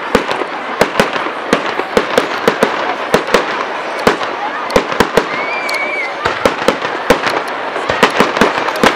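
Fireworks display: aerial shells bursting overhead in a rapid, irregular string of sharp bangs over a steady crackling haze.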